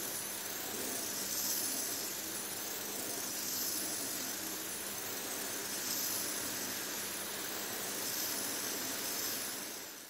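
Makerfire Turbo Racing 1:76 micro RC car's tiny electric motor and gears whirring as it drives, a thin hissy whine that swells and eases every couple of seconds with the throttle.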